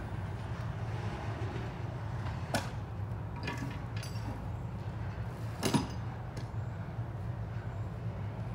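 Low, steady rumble of a diesel locomotive's engine at low throttle, with two sharp metallic clanks about three seconds apart, the second louder and briefly ringing.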